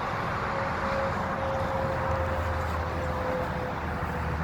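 Steady highway traffic noise, with a faint tone that slowly falls in pitch.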